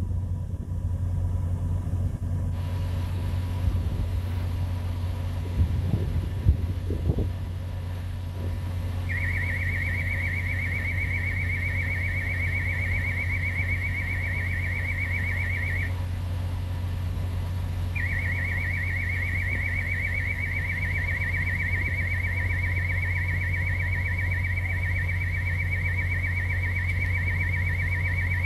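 Proximity-warning alarm of a Scan-Link pedestrian detection system: a rapid, warbling high electronic beep that sounds for about seven seconds, stops, then comes back about eighteen seconds in and keeps on, signalling that a worker wearing a detection tag is within range of the machine. Under it a heavy machine's diesel engine idles with a steady low hum, and there are a few knocks about six seconds in.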